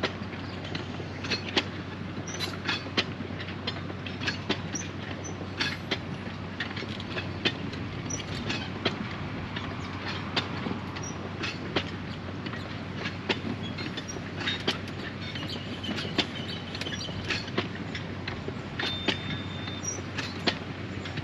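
Narrow-gauge cane train hauling loaded sugar cane bins rolling past, a steady rumble with frequent irregular clicks and clanks of the wheels and bins.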